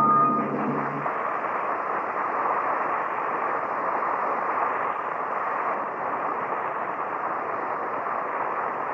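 Steady surface hiss and noise from a transcription disc, with the last of the closing music dying out about a second in.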